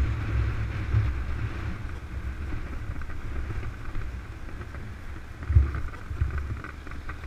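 Wind buffeting the helmet-mounted microphone of a moving motorcycle, a gusty low rumble over the bike's running and road noise, gradually getting quieter, with one stronger gust about five and a half seconds in.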